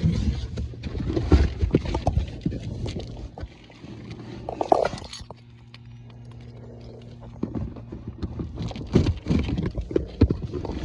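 Irregular knocks, clicks and rustling from handling a boxed car strut, over a steady low hum; it goes quieter for a couple of seconds in the middle.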